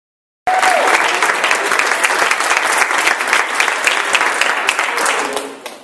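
Audience applauding, dense clapping that begins abruptly about half a second in and fades away near the end.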